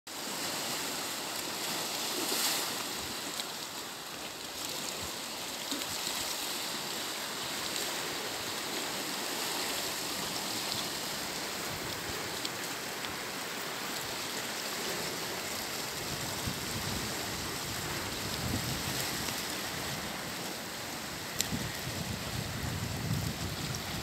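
Sea waves washing and swirling among coastal rocks, a steady rush of surf. Wind buffets the microphone from about two-thirds of the way in.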